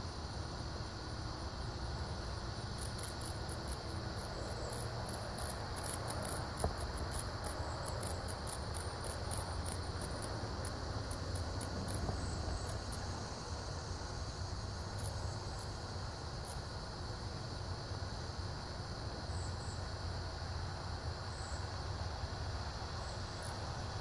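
A high-pitched insect call of rapid ticks, about four or five a second, running for several seconds before thinning to a few scattered ticks, over a steady low rumble.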